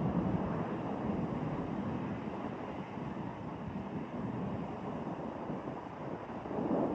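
Steady rushing roar of an Airbus A380's jet engines mixed with wind on the microphone, swelling louder near the end.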